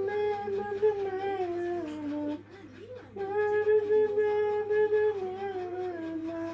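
A voice humming a slow tune in two long phrases: each a long held note that sinks in small steps near its end, with a short breath between them.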